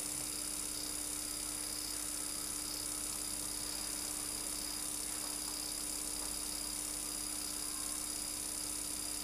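Steady electrical hum with hiss: a constant low tone and a faint high whine that never change.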